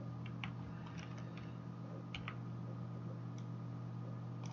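A handful of faint, scattered computer mouse and keyboard clicks over a steady low electrical hum.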